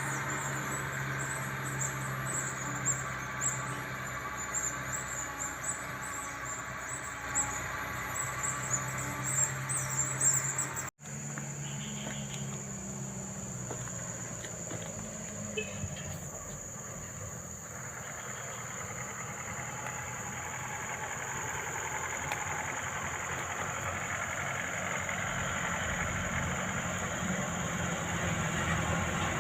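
Heavy machinery engine running steadily with high, jittery squealing over it. After an abrupt cut about 11 seconds in, a steady vehicle running sound slowly grows louder.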